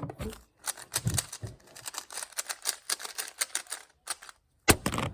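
2x2 speed cube being turned fast during a timed solve: a rapid run of plastic clicks from the layers snapping round, then a pause and one louder knock near the end.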